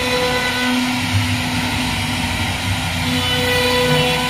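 CNC router spindle running with a steady whine while its bit carves a relief pattern into a wooden door panel, over the rougher noise of the cut.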